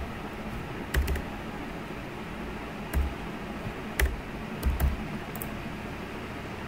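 A handful of separate computer keyboard keystrokes, spaced a second or more apart, over a steady low hum.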